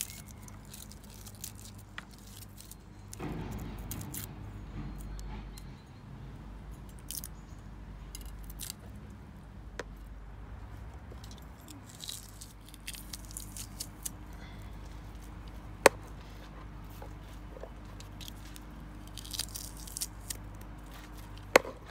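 Scattered light clicks and knocks of meat, bowl and utensils being handled while a marinade is prepared, with one sharp click about three-quarters of the way through, over a faint steady low hum.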